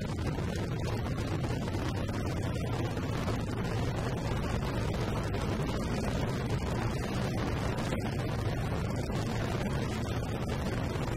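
Wind buffeting the microphone of a moving motorcycle, over the low, steady rumble of its engine.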